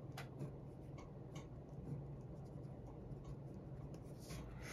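Pen writing on paper: faint scratches and small ticks as a circle is drawn and divided into sections.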